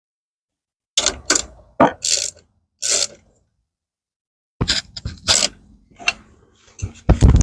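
Bursts of short, sharp ratchet-like clicking and rasping from the dog door's fittings as they are tightened, in two groups separated by a pause of about a second and a half.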